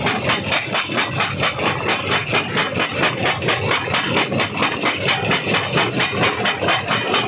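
Stone crusher running: a steady, rhythmic knocking about four times a second over continuous mechanical noise.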